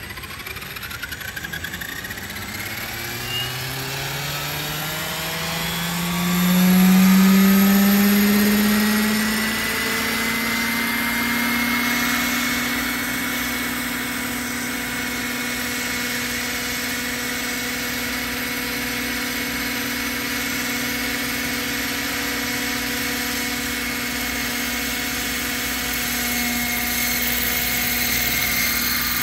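Roban EC130 800-size electric scale RC helicopter spooling up on the pad: the motor whine and rotor rise steadily in pitch, swell loudest about seven seconds in, then settle into a steady whine at flight head speed, ready to lift off.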